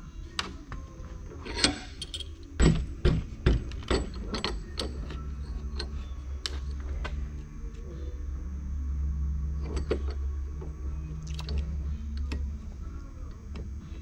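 Metal knocks and clinks from clamping copper tubing in a cast-iron bench vise and working its sliding handle. They come in a quick run over the first few seconds, with a couple more later, over a low steady hum.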